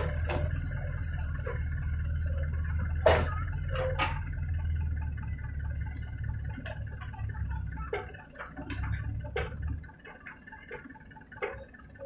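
JCB 3DX backhoe loader's diesel engine running as the backhoe digs and dumps soil, with scattered clanks and knocks, a loud one about three seconds in. The engine note weakens and drops away near the end.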